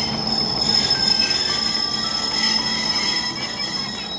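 Freight train rolling slowly along the rails, its wheels squealing in several steady high-pitched tones over a continuous rumble.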